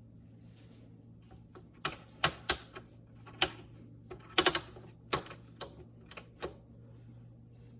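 Irregular sharp clicks and clacks, about a dozen spread over several seconds with a cluster of the loudest near the middle, over a faint steady hum; hard plastic parts of the stand mixer being handled while its motor is off.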